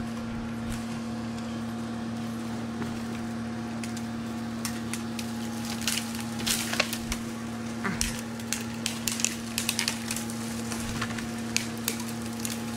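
Wood crackling and snapping in scattered sharp bursts from about five seconds in, most dense in the middle, as a tree is strained by a winch line. A steady low machine hum runs underneath.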